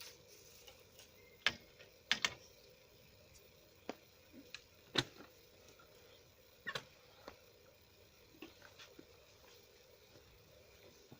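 A series of about nine sharp clicks and light knocks at irregular intervals over a faint steady hiss, loudest about one and a half seconds in and again about five seconds in.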